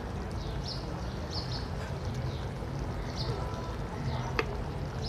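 Faint bird chirps, one every half second to a second, over a steady low background hum, with one sharp click about four seconds in.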